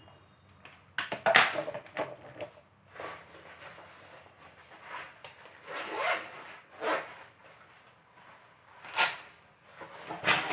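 Handling noise from a black padded nylon carry bag for a metal detector kit: short bursts of rustling and scuffing every second or two as it is opened and rummaged, with a louder clatter about a second in.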